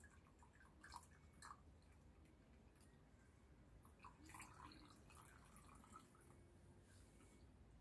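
Near silence, with a faint trickle of water poured in a thin stream onto ash in a tub and a few soft drips, most of them about four to five seconds in.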